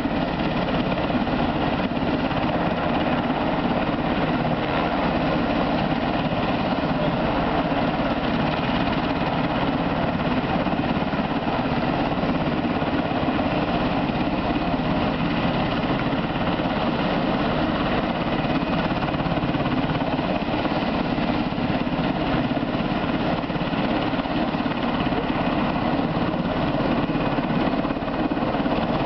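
UH-60 Black Hawk helicopter running on the ground with its rotors turning: a steady, loud rotor and turbine noise with a faint high whine. It stays unchanged throughout.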